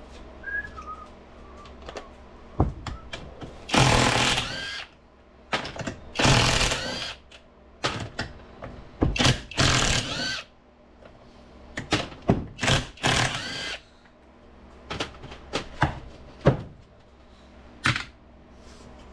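A power wrench spinning out the 15 mm tail housing bolts of an NP241C transfer case, in several bursts of about a second each. Short clinks of metal and tools come between the bursts.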